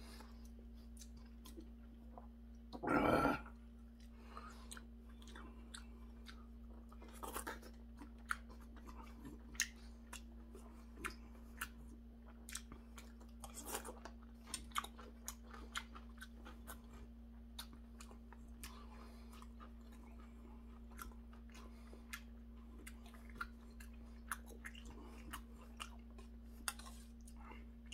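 A person chewing and crunching mouthfuls of seonji gukbap (ox-blood soup) and kimchi close to the microphone, with scattered sharp clicks of a metal spoon and chopsticks against a stainless-steel bowl. A short vocal sound comes about three seconds in, over a faint steady hum.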